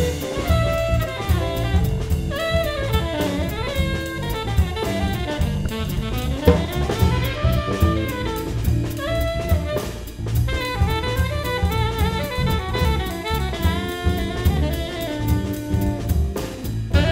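Small jazz band playing live: a tenor saxophone solos in quick melodic runs over a drum kit with a steady cymbal beat and electric bass.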